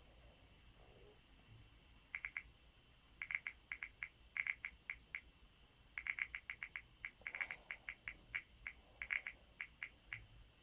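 Typing on an LG G3 smartphone's on-screen keyboard: short, sharp key-press clicks in quick, irregular runs of several a second, starting about two seconds in, as a password is entered.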